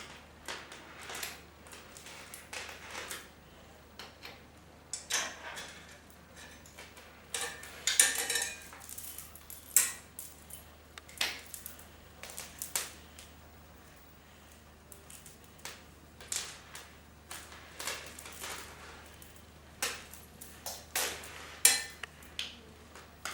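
Irregular metallic clinks and taps of tools against bicycle parts during a repair, with the loudest knocks about eight and twenty-one seconds in.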